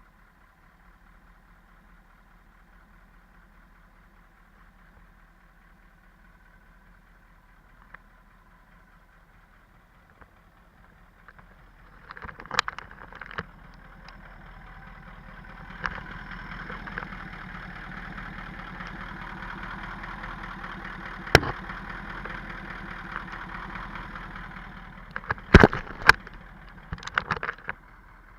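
Cummins VT903 V8 diesel idling quietly. About halfway through, a louder steady hiss comes in, heard close to the truck while its air and exhaust leaks are being traced, and it fades near the end. A few sharp knocks sound along the way.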